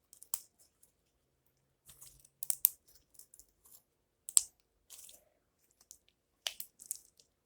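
Slime being squeezed and worked by hand, giving irregular short, sharp wet crackles and pops, the loudest about two and a half and four and a half seconds in.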